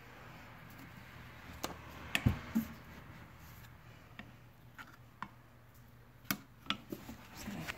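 Motor oil being poured from a plastic gallon jug into a funnel: a faint pouring hiss, with a few light clicks and knocks of the plastic jug and funnel, grouped about two seconds in and again near the end.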